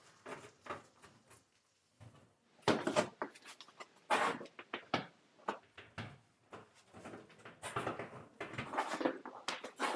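Footsteps crunching and scraping on glacier ice, irregular, a few steps a second, with a short pause about two seconds in.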